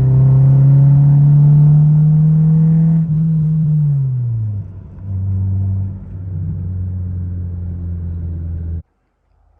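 1996 Honda Civic's engine and loud exhaust under way: the note climbs steadily for about three seconds, drops away as the revs fall, then holds steady before cutting off abruptly near the end. The exhaust is the one that needs fixing.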